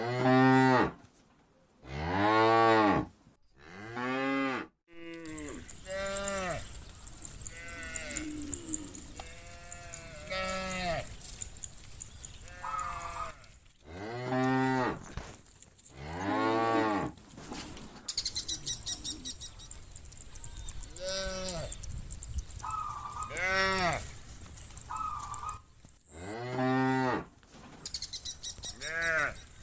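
Cattle mooing over and over, one call after another. Each moo lasts about a second and its pitch rises and falls. The loudest moos come in the first few seconds.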